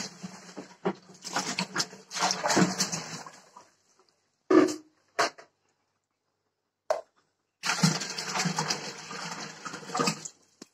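Liquid churned yogurt being poured from a plastic bucket into an enamel pot, with handling noises. There are two long noisy stretches and a few short knocks in between.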